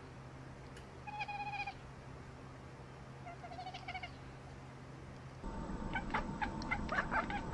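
A cat meows twice: two short, high, slightly wavering calls. Near the end the sound changes abruptly to a louder, noisier stretch of quick, sharp chirps and squeaks.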